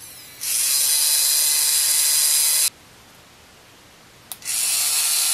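3Doodler 3D pen's filament-feed motor whirring as it pushes yellow plastic through the hot nozzle to weld a joint. It runs twice, about two seconds each time, with a short click just before the second run.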